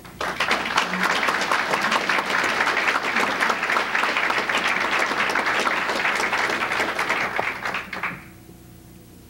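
Audience applauding, a dense steady clatter of many hands that stops fairly abruptly about eight seconds in, leaving quiet hall tone with a faint hum.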